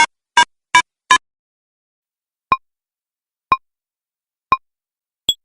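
Electronic countdown-timer beeps: four quick short beeps, then single beeps about a second apart, ending with a shorter, higher-pitched beep.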